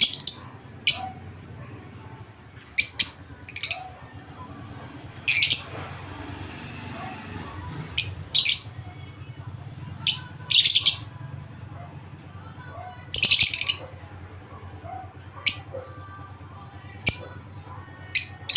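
Small birds chirping in short, sharp bursts every second or two, over a faint low hum.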